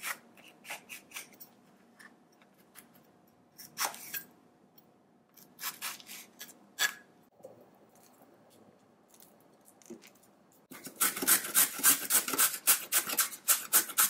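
Kitchen food preparation: a knife cutting vegetables on a wooden chopping board in scattered short knocks, then, about three-quarters of the way in, a carrot grated on a plastic hand grater in quick scraping strokes, about five a second.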